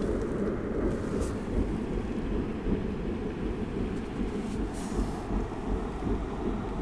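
Steady low rumble of wind buffeting the microphone in rainy weather, with a couple of faint brief hisses about a second in and near five seconds.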